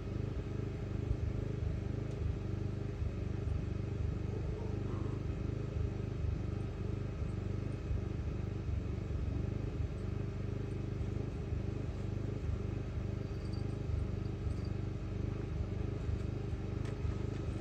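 A steady low rumble with a constant hum, unchanging throughout.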